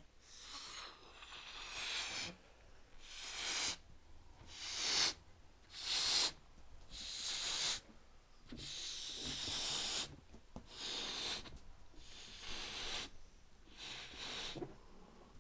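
A red rubber balloon being blown up by mouth: about ten hissing breaths, each a second or less, with short pauses between them as the balloon swells.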